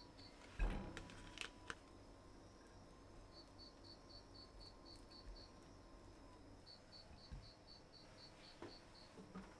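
Cooked rice tipped out of a plastic storage container onto a ceramic plate with a single soft thump, followed by a couple of light clicks of chopsticks on the plate and, later, a soft knock as food is set down. A faint, high, pulsed chirping repeats in short trains in the background.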